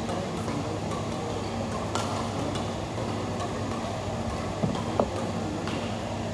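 Badminton rally: sharp clicks of rackets striking the shuttlecock, spaced a second or so apart, over a steady hum. A brief squeak sounds about five seconds in.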